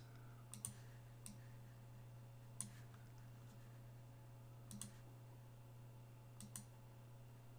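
Faint computer mouse clicks, about eight in all, some in quick pairs, over a low steady hum.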